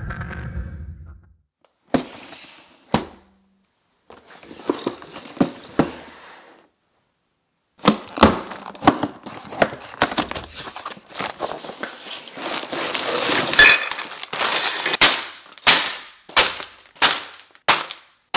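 A cardboard Lego box being torn open and the plastic parts bags inside being pulled out and handled: tearing cardboard, crinkling plastic, and a run of sharp taps and knocks as pieces and bags are set down, busiest in the second half.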